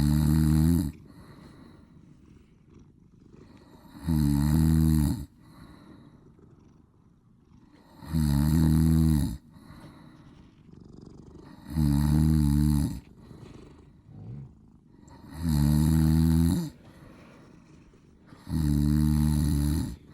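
A man snoring deeply and loudly, six long snores at an even pace of about one every four seconds, with quiet breathing between them.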